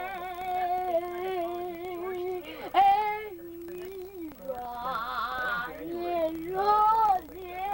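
A child singing long, wavering wordless notes, the pitch sliding down and up between held tones, with a short loud high cry about three seconds in.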